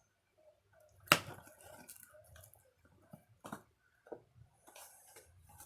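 Handling sounds of an item being unpacked: a sharp click or knock about a second in, then scattered softer clicks and light rustling.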